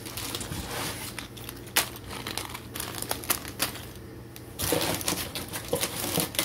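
Plastic Lego minifigure blind-bag packets crinkling and crackling as they are handled and piled, full of small clicks, with a brief lull a little past the halfway mark.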